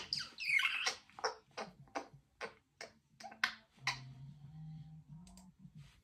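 Congo African grey parrot vocalizing: a quick burst of whistled chatter, then a run of short sharp clicks and chirps, about two or three a second. A low hum sounds for about a second and a half after the clicks.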